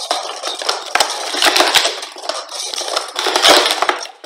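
Speed Stacks plastic sport-stacking cups being rapidly stacked up and slid back down on a StackMat: a fast, dense clatter of cups clicking and knocking together.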